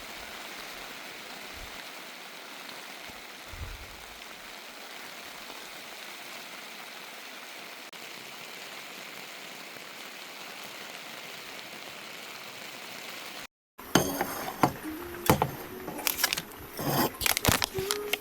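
A steady, even rushing hiss that cuts off abruptly about 13 seconds in. It is followed by a run of sharp clinks and knocks of hard objects, some with short ringing tones.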